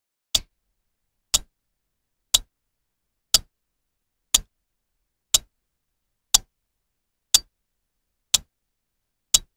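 Clock-tick sound effect: single sharp ticks, one every second, ten in all, with silence between, timing a pause for the viewer to answer the question just asked.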